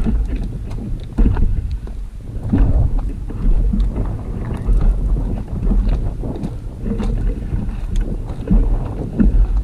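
Wind buffeting the microphone: a loud, uneven low rumble that swells and drops in gusts.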